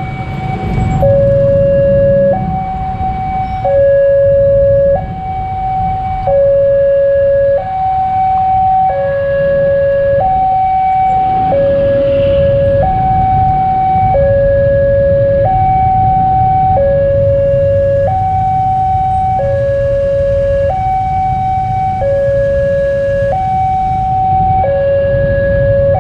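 Electronic two-tone alarm of a railway level crossing sounding while the barrier is down: a higher and a lower tone take turns, each held a little over a second. A low rumble of road traffic runs underneath.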